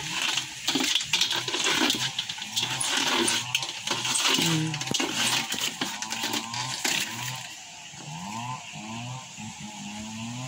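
Water splashing and rattling in a shallow aluminium basin as a softshell turtle scrabbles in it, with clicks and scrapes against the metal, most of it in the first seven seconds. A low, wavering pitched sound of unknown source carries on through the second half.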